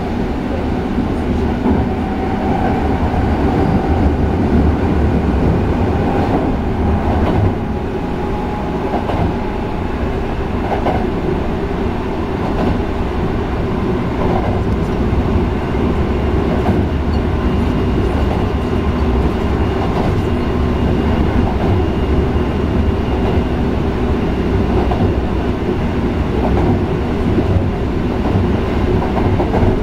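Sanyo 5030 series electric train running between stations: a steady wheel and motor rumble with faint steady tones from its Fuji Electric IGBT-VVVF drive, and a wheel click over the rail joints every second or two.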